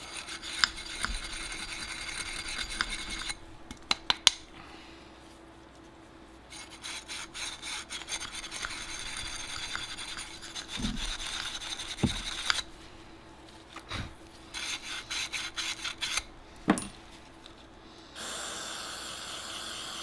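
Wire brush scrubbing inside a rusty metal golf-cart carburetor, scraping in stretches with short pauses and a few sharp knocks, breaking off hardened varnish and rust deposits.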